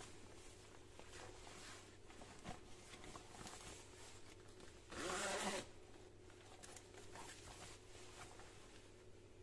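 The zipper of a padded dog coat being pulled open in one quick rasping stroke of about half a second, roughly five seconds in. Quiet rustling and handling of the coat's fabric surrounds it.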